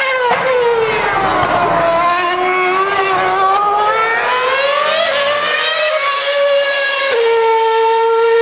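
Formula One car engine taking a corner: the pitch falls as it slows in, then climbs as it accelerates out, with quick upshifts about five, six and seven seconds in. After that it holds a steady high note as the car pulls away.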